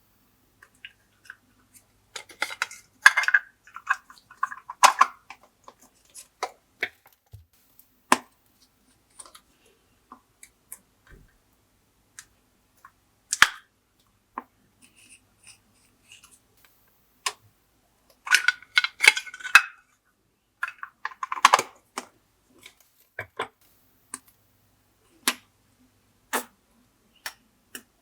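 Glossy slime being pressed and squished by hand, giving wet, sticky clicks and pops. Two spells of dense crackling, one a few seconds in and one about two-thirds of the way through, stand out among scattered single pops.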